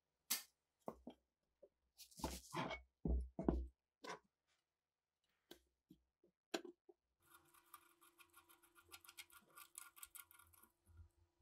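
Rusty steel parts of a PTRD anti-tank rifle and hand tools clicking and knocking against each other, as an adjustable wrench and a screwdriver are set on a rusted bolt. The loudest is a run of knocks about two to four seconds in. From about seven seconds there is a faint, fast, even ticking over a steady low hum.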